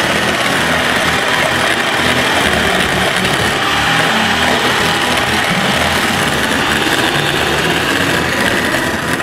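Electric hand mixer running steadily, its beaters whisking a small amount of egg white and lemon juice in a bowl toward a foam.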